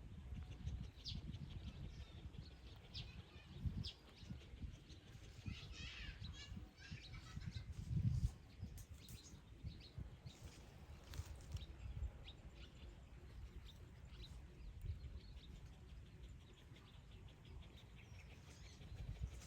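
Faint high chirping, with low bumps and rumble on the microphone; the loudest bump comes about eight seconds in.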